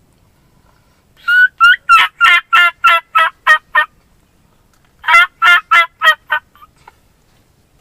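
Hunter blowing a diaphragm turkey mouth call: a couple of high, whistled kee notes transitioning into a fast run of about nine yelps, then after a pause a second run of about five yelps. This is the kee-kee run, a young turkey's lost call.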